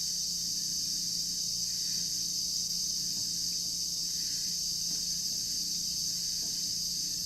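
Steady hum with an even high-pitched hiss from a milling machine running in the shop, no distinct knocks or clicks.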